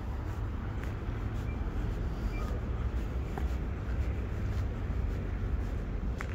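City background noise: a steady low rumble with an even hiss over it, and faint, fairly regular ticks of footsteps on paving stones.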